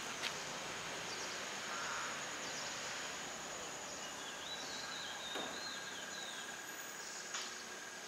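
Outdoor pond-side ambience: a steady, high-pitched insect buzz, like crickets, runs throughout, with a short run of bird chirps about halfway through.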